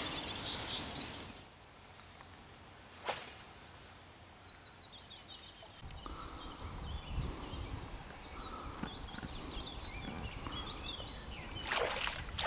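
Quiet lakeside ambience with small birds chirping and singing. Near the end there is a sudden splash as a pike strikes a surface lure.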